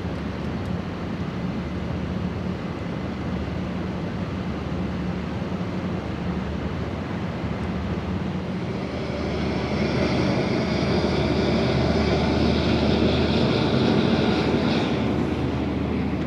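Steady low hum of a large cruise ship's diesel engines running as she manoeuvres in the harbour. A louder passing rush swells up from about nine seconds in and fades near the end.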